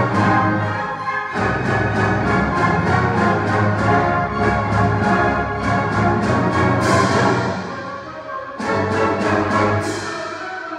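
Youth orchestra of bowed strings and brass playing classical music, with loud accented strokes in a driving rhythm of about three a second, breaking off briefly about a second in and easing for a moment near the end.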